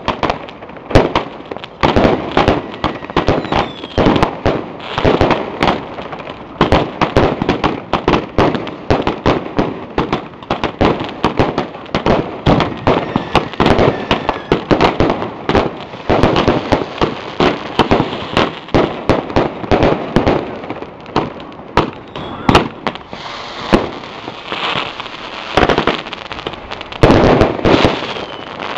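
Fireworks going off close by: a dense, unbroken run of bangs and crackling from bursting shells, several pops a second.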